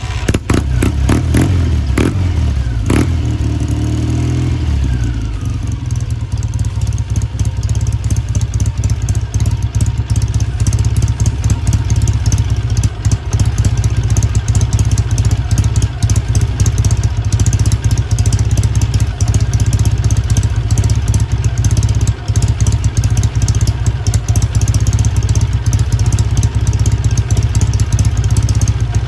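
1968 Kawasaki W1S 650 parallel-twin motorcycle engine, just fired up after two weeks standing. Over the first few seconds it is revved several times with a few sharp cracks, then it runs steadily and loudly, which the owner calls a little unstable but full of energy.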